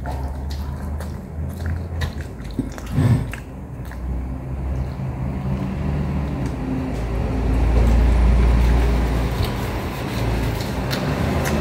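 Close-up biting and chewing of a soft burger bun with egg and cheese: wet smacking and mouth clicks. Under it runs a steady low rumble that swells in the second half.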